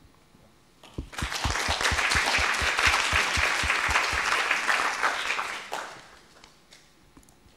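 Audience applauding: a burst of many hands clapping that starts about a second in, holds for some five seconds and then dies away.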